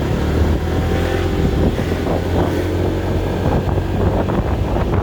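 Motor vehicle engine running steadily on the move, with wind rushing over the microphone.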